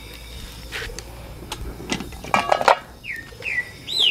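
Metal cookware clinking and clattering as a pot lid, cup and kettle are handled, with a burst of ringing clinks about halfway through. Short falling chirps from a bird come near the end.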